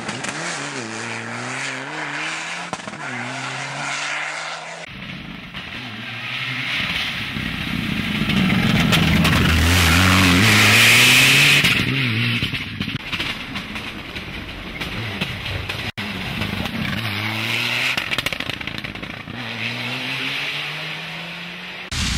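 Mitsubishi Lancer Evo IX rally car's turbocharged four-cylinder engine accelerating hard, its pitch climbing and dropping back at each upshift. It repeats over several passes, with abrupt changes in sound between shots, and is loudest about halfway through, when the car passes close with a rush of tyre and exhaust noise.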